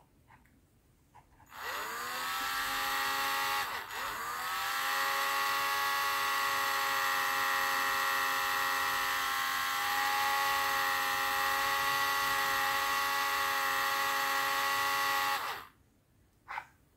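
Dremel rotary tool spinning up with a rising whine, dipping briefly soon after, then running steadily for about twelve seconds before switching off. A small model part is held in its chuck.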